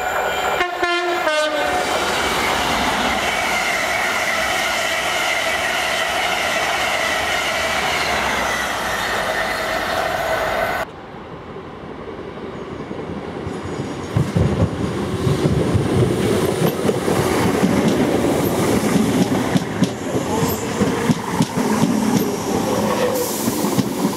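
Train noise throughout. A steady passing-train sound with held tones is cut off suddenly near the middle, and a Great Northern electric multiple unit then runs past close by, rumbling louder with its wheels clattering over the rail joints.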